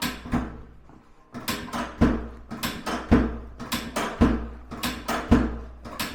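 A steady rhythm of sharp percussive hits, about two a second; every second hit is heavier, with a deep thud.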